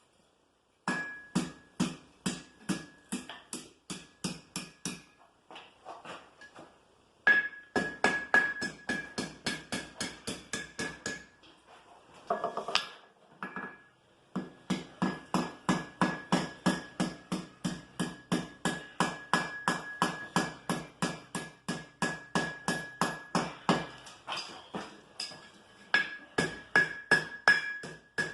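Blacksmith's hand hammer striking wrought iron on an anvil, about three blows a second with a steady ring under them. The blows come in four runs with short pauses between.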